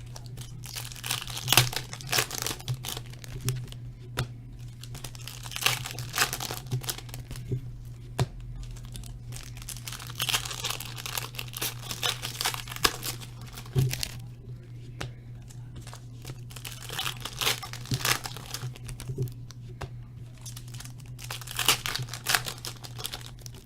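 Trading-card pack wrappers being torn open and crinkled by hand in a run of irregular rustles, over a steady low hum.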